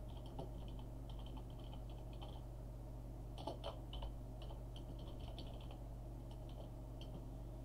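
Typing on a computer keyboard: quick runs of keystrokes with a short pause about two and a half seconds in and a few louder key strikes around three and a half seconds, over a steady low hum.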